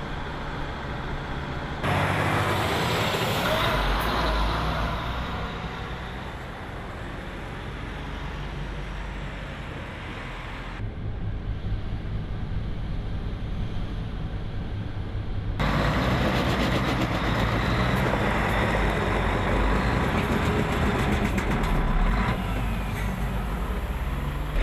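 Heavy trucks' diesel engines running at low speed with road and traffic noise. The sound changes abruptly three times.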